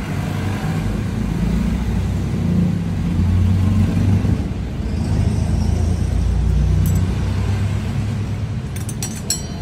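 A motor vehicle engine running with a steady low rumble that swells between about three and seven seconds in, with a few sharp metal clicks near the end.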